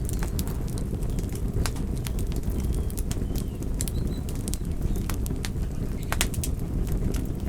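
Fireplace fire crackling: irregular sharp pops and snaps, several a second at times, over a steady low rumble.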